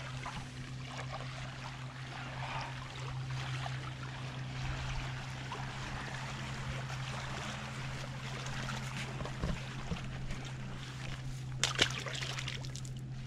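A steady low hum with faint rustling, then near the end a sharp splash as a small carp is thrown back into the river.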